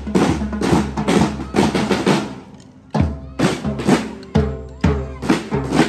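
Marching snare drums and bass drum played together by a drum corps in a steady beat, about two strong hits a second. The drumming fades briefly about two and a half seconds in, then starts again.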